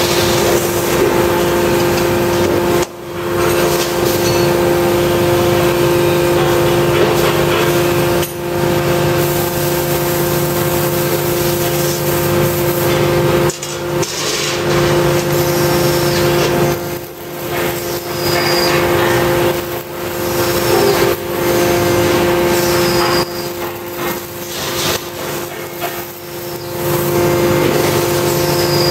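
1000-ton Kawasaki Yuko hydraulic press standing idle with its hydraulic power unit running: a loud, steady hum with two held tones over a hiss, which dips briefly and suddenly several times. Occasional knocks of sheet metal being handled at the press.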